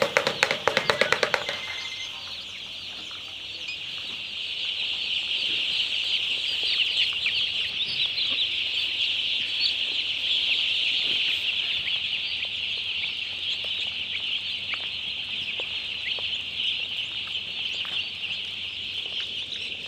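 A large flock of poultry chicks peeping continuously, a dense chorus of high chirps that grows louder a few seconds in. A brief rapid rattling sound runs over it during the first second and a half.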